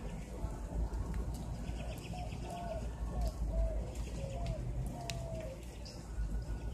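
A bird calling in the background, a run of about six short, clear notes over a few seconds, over a steady low rumble.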